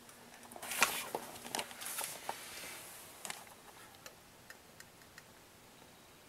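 Small handling noises: rustling and light knocks as a plastic battery box and its wires are picked up and positioned, thinning out to a few faint, separate clicks.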